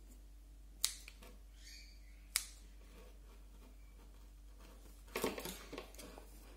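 Two sharp snips of pruning scissors cutting bougainvillea shoots, about a second and a half apart. Near the end comes a short spell of rustling and light scraping as the potted plant is turned on the table.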